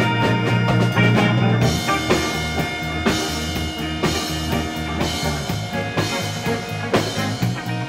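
Background music: an instrumental jazz band piece with alto saxophone, guitars, bass and drums, the drums keeping a steady beat.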